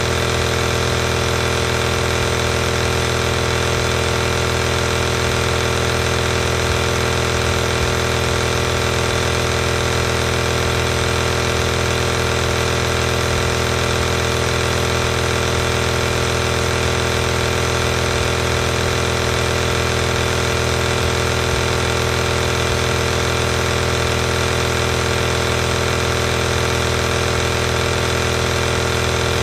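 A tabletop compressor nebulizer running, its small piston compressor giving a constant mechanical hum with a buzzy edge that does not change in pitch or level.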